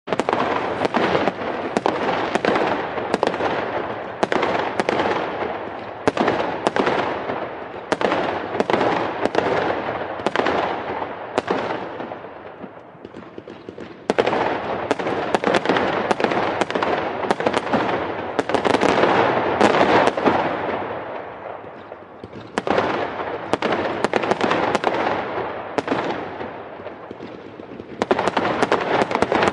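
Fireworks display: rapid, overlapping bangs and crackling. The volleys thin out twice, about twelve seconds in and again about twenty-two seconds in, before building back up.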